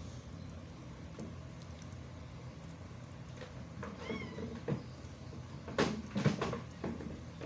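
Newborn Shih Tzu puppy giving a short, high, mewing cry about four seconds in. Soft rustles and a few knocks follow as the puppy is rubbed and handled on a towel.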